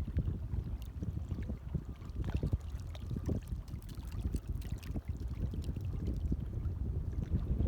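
Gentle water waves lapping and sloshing, with many small irregular splashes.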